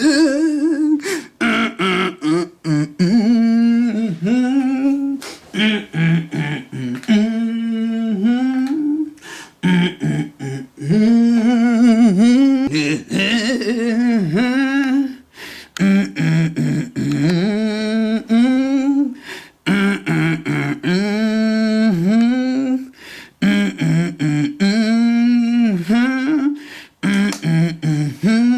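A voice humming a slow, wordless tune in phrases with a wavering vibrato, breaking off briefly between phrases.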